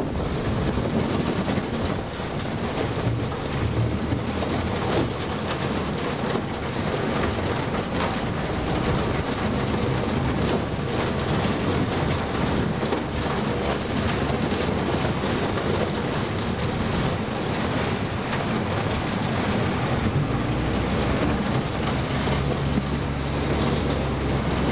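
Rotten lake ice crunching and rattling against the hull of a 14-foot aluminum boat as it pushes through, a continuous dense crackle of small knocks, with the boat's motor running steadily underneath.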